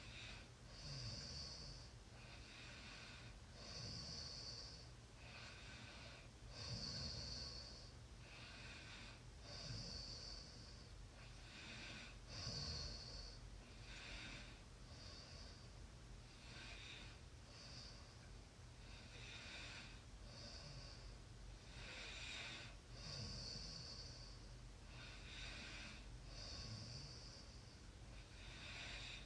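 Faint snoring: a sleeping person's slow, noisy breathing repeating evenly, with a hissy breath roughly every one and a half seconds and in and out alternating.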